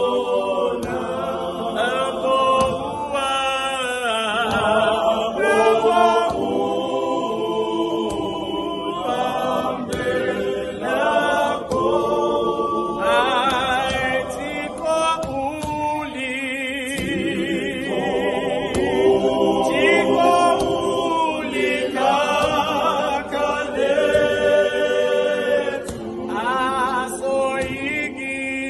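Choir singing a hymn, many voices together carrying a melody.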